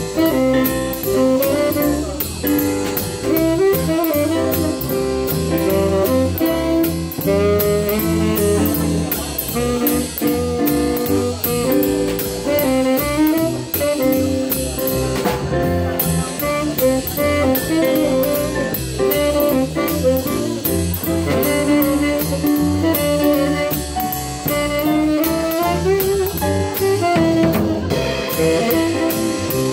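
Live jazz combo playing a swing tune: piano, bass and drum kit, with a pitched melody line bending over the top.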